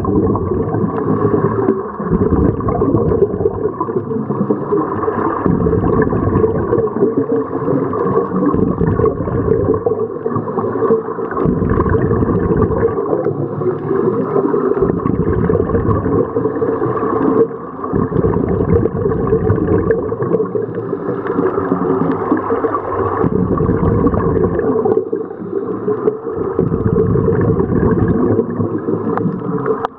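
Scuba regulators heard underwater through a camera housing: bubbling surges of exhaled air every few seconds over a steady low wash of water.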